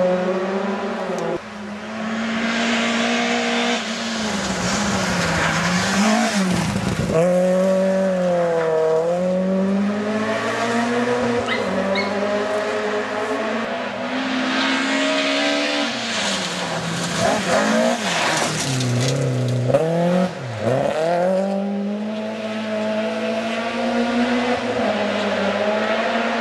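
Rally car engines revving hard through the gears as cars drive a gravel stage, the pitch climbing and dropping sharply again and again at each shift and lift, with a steady hiss of tyres on gravel.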